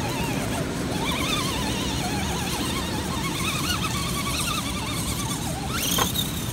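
Whine of a Red Cat Gen 7 RC rock crawler's electric motor and gears under load on a climb, the pitch wavering up and down as the throttle is worked, over a steady low rumble. A sharp click about six seconds in.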